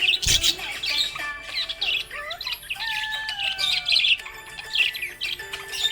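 Budgerigars (budgies) chirping and squawking in a rapid run of short, high chirps and warbles, with a few longer whistled notes gliding slowly downward about halfway through. This cheerful chatter is typical of contented, active budgies.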